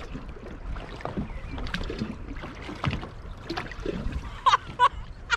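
Lake water slapping against the hull of a bass boat, over a steady low rumble, with scattered knocks from handling in the boat. A few short, high cries come near the end.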